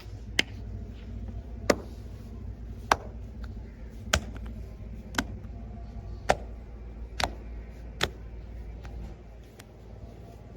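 Sharp joint cracks from a chiropractic-style body-cracking session, about nine in a row roughly a second apart, with a couple of fainter clicks near the end, over a low steady hum.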